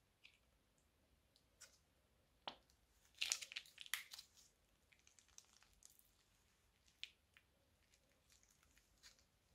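Faint crinkling and crackling of a plastic piping bag squeezed by hand as slime is piped out, with scattered soft clicks and a denser run of crackles a little after three seconds in.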